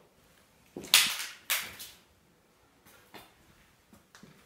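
Two loud, sharp knocks or crunches about half a second apart, about a second in, each dying away quickly, followed by a couple of fainter clicks.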